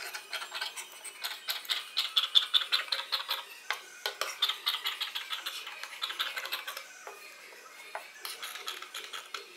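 Large tailoring scissors snipping through cotton fabric with fused paper interfacing, cutting out a shirt-collar piece: a quick, steady series of crisp snips, thinning out near the end.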